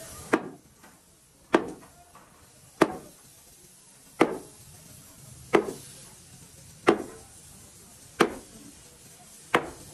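Eight evenly paced heavy blows, about one every 1.3 seconds, each a sharp strike with a short ringing tail, in the manner of steady hammering.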